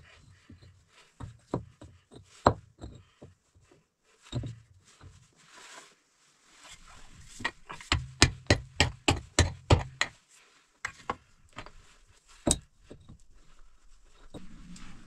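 Stones knocking and scraping as they are handled and set in place, with a quick run of about a dozen sharp blows partway through, about five a second: a hammer striking stone.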